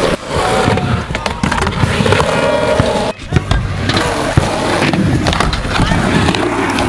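Skateboard wheels rolling on asphalt with a steady rumble, broken by several sharp clacks of the board hitting the ground.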